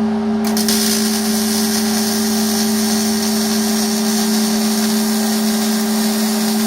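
Welding arc struck about half a second in on 1/16-inch-wall pipe. It hisses and crackles steadily for about six seconds, then cuts off, over a steady machine hum.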